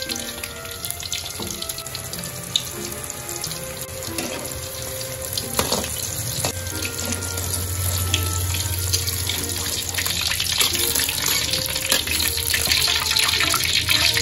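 Vegetable pieces sizzling and crackling in hot oil in a wok, with the clink and scrape of a metal spatula and wire skimmer against the pan. The sizzle grows louder over the last few seconds.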